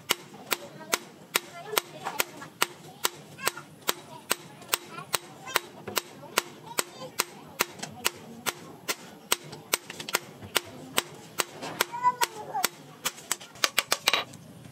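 Hand hammer forging a red-hot steel knife blade on a steel post anvil: a steady run of sharp metal-on-metal strikes, about three a second, coming faster near the end.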